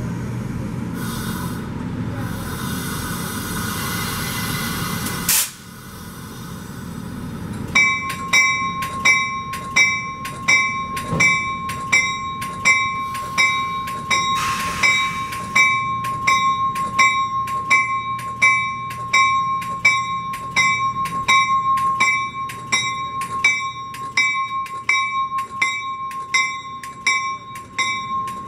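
A steady rushing noise for the first five seconds that cuts off suddenly. From about eight seconds on, a railroad bell rings in a steady rhythm, roughly one and a half strokes a second, its ring carrying on between strokes.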